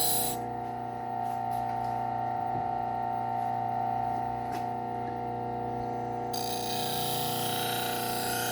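Bucktool slow-speed belt sander motor running with a steady hum. The hiss of the knife edge rubbing on the compounded leather honing wheel stops just after the start and starts again about six seconds in; the leather is polishing the edge and removing the burr.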